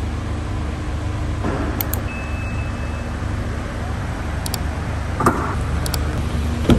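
Mazda CX-30's power tailgate closing on its electric motor: a steady hum with a few short clicks in the second half.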